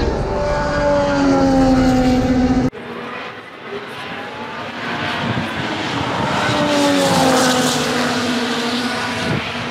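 2022 Formula 1 cars' V6 turbo-hybrid engines passing at speed, the engine note falling in pitch as a car goes by. The sound breaks off abruptly about three seconds in, and a second car passes with the same falling note.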